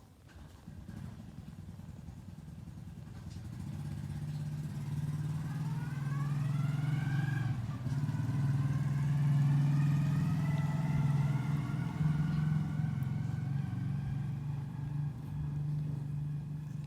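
Cat purring close to the microphone: a steady, low, rapidly pulsing hum that grows louder over the first few seconds. A fainter whine of several tones glides upward about five seconds in and then holds.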